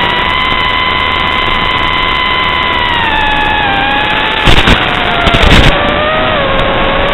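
FPV racing quadcopter's motors whining at a steady high pitch, the pitch sliding down about three seconds in and again near the end as the throttle eases off. Midway, two loud rough bursts of noise cut through, a short one and then a longer one.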